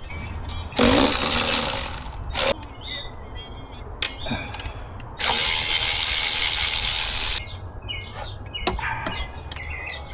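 Hand tools working on an engine: scattered ratchet clicks and small metal knocks, broken by two loud hissing stretches of about one and a half and two seconds, the first about a second in and the second about five seconds in.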